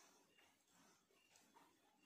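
Near silence, with faint soft sounds of fingers mixing rice and curry on a plastic plate.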